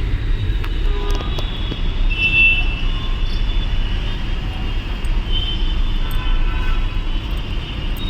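Slow, congested city traffic: a steady low rumble of vehicle engines, with other vehicles' horns sounding briefly about two seconds in and again around five to six seconds in.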